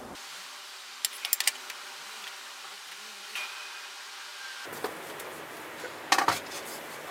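A few short clusters of light clicks and knocks, as of small objects being handled and set down, over a steady hiss; the loudest cluster comes near the end.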